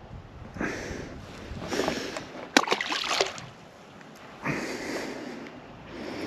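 A fish being released drops back into the pond with a splash, the sharpest sound about two and a half seconds in, among several short bursts of noise.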